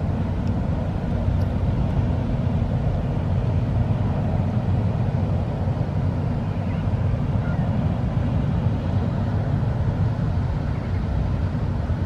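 Steady low drone of a boat's engine, an unbroken rumble with a constant hum underneath.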